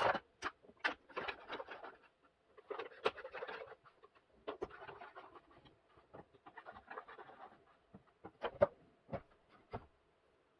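A series of sharp clicks mixed with stretches of rustling and scratching, from a hand working a push-button control station wired to a modular contactor.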